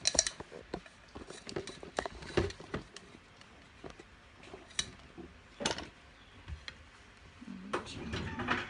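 Handling noise from a phone being held and moved about: scattered knocks and clicks, the loudest right at the start, with a few sharper clicks about halfway through.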